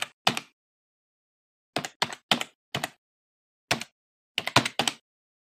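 Computer keyboard keystroke sound effect: about nine single key clicks in uneven clusters, timed to letters being typed on screen, with silence between them. The keystrokes stop about five seconds in.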